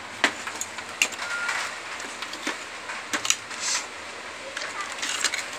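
Scattered sharp clicks and light knocks of a TV power-supply circuit board being handled and lifted against the TV's metal chassis.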